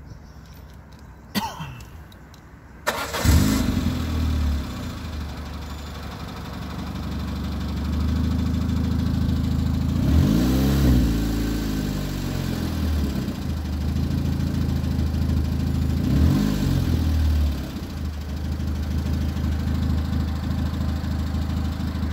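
Peugeot 206's 1.4-litre petrol engine starting after a couple of clicks, about three seconds in. It then idles and is revved up and back down twice, about ten seconds in and again about six seconds later.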